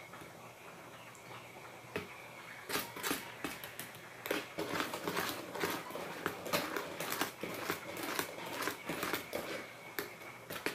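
Cake batter being beaten by hand in a plastic mixing bowl: a utensil clacks and scrapes against the bowl in rapid, uneven strokes, starting about three seconds in.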